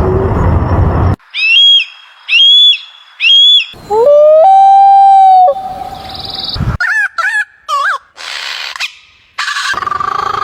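A run of separate animal calls cut one after another: three short clear calls, then a long call that rises and then holds one steady pitch, then a few quick sweeping calls.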